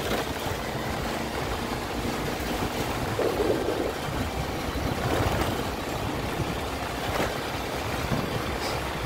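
Wind buffeting the microphone while riding, over a low rumble of tyres rolling on interlocking concrete paving blocks.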